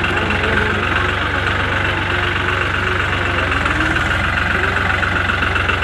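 Diesel tractor engine idling steadily, its firing beat even and unchanging.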